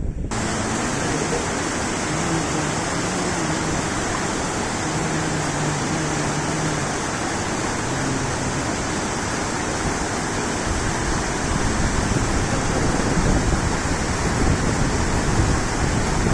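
Floodwater rushing steadily down a swollen river, a dense, unbroken roar of water. Wind buffets the microphone from about two-thirds of the way in.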